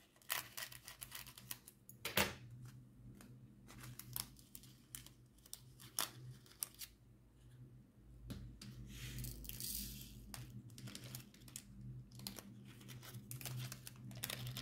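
Small plastic bag of diamond-painting drills crinkling as it is handled and snipped open with small scissors, with scattered light clicks and taps of plastic storage containers.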